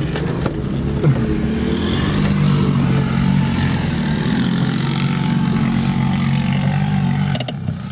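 Suzuki Jimny's engine running steadily as the 4x4 creeps over a sandy off-road track, heard from inside the cabin. There is a thump about a second in, and a few sharp clicks near the end as the engine sound drops away.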